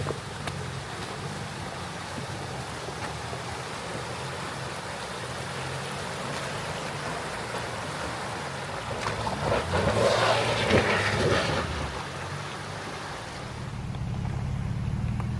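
Nissan Xterra driving slowly on a dirt trail: engine running low and steady under tyre and body noise, with a louder rushing noise for about three seconds about ten seconds in.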